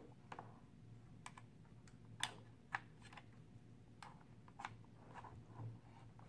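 Faint, scattered clicks and taps as banana plugs on a charging lead are handled and pushed into a balance charger's output sockets, with two slightly louder clicks a little after two seconds in.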